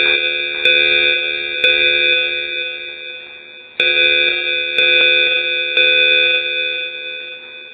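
Cartoon fire alarm bell ringing: three strikes about a second apart, each ringing on and fading, with the group repeating every four seconds or so.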